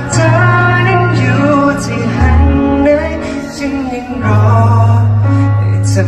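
A male singer singing live into a handheld microphone over a backing track, heard through the venue's loudspeakers; long held bass notes change twice under the bending vocal line.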